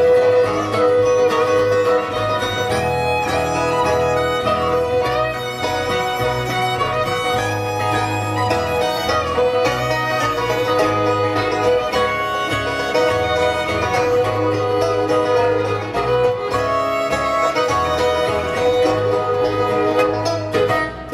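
Live bluegrass band playing an instrumental break with no singing: fiddle carrying the lead over banjo and guitar, with a steady low beat underneath.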